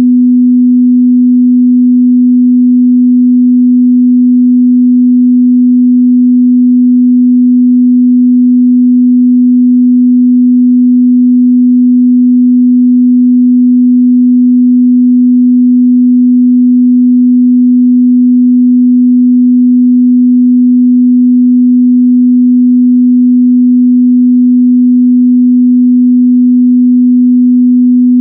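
A steady, loud 248 Hz sine-wave test tone, a single pure pitch that does not change.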